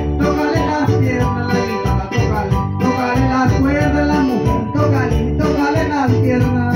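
Live music from a small band: acoustic guitar and electronic keyboard playing together over a steady rattling percussion beat.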